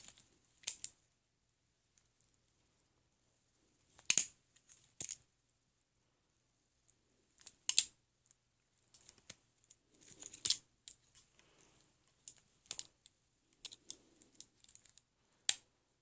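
Balisong butterfly knife being flipped through tricks: its handles clack and click against each other and the blade in scattered, irregular bursts, with quiet stretches between.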